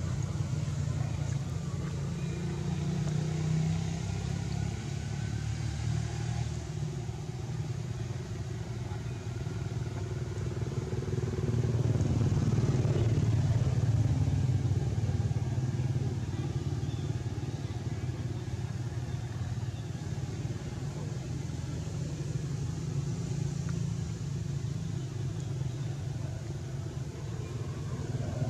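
A low, steady engine rumble, like a motor vehicle running, which swells a little louder about twelve seconds in.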